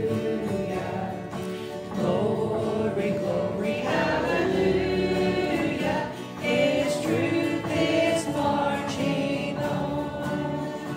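Live gospel song: several voices led by a woman singer, with acoustic guitar accompaniment.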